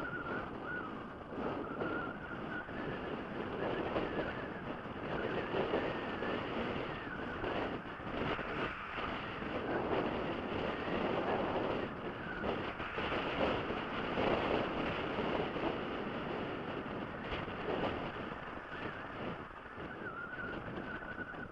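Off-road motorcycle engine working hard as the bike is ridden up a rough, rocky track, its sound rising and falling with the throttle, with wind buffeting the microphone.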